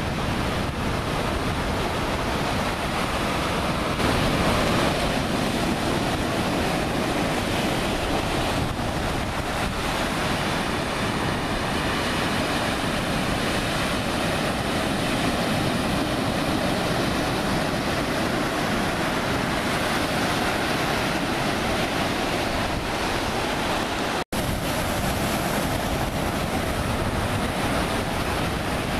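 Ocean surf breaking and washing, with wind rushing over the microphone. The sound drops out for an instant about 24 seconds in.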